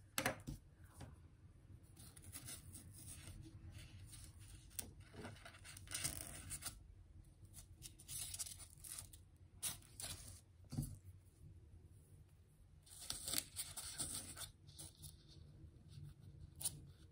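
Faint scratchy rustling of fuzzy wire pipe cleaners being bent, curled and pushed into a foam base by hand, with scattered light ticks and taps.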